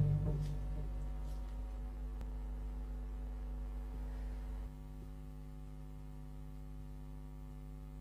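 Steady low hum made of several constant tones, with the fading tail of a loud hit dying away in the first second; the hum drops slightly in level a little past halfway.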